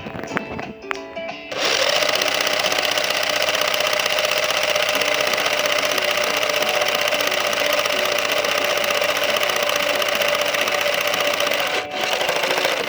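A remote control Brum toy car's small electric motor and gears whirring steadily for about ten seconds, starting and stopping abruptly. Background music plays underneath.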